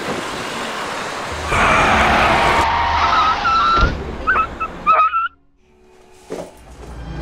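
Street traffic noise that swells as a vehicle passes, with a knock and a few short high squeaks after it, then cuts off abruptly.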